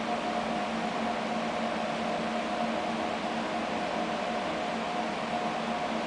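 Steady mechanical hum and hiss with a few unchanging tones, like ventilation or running machinery.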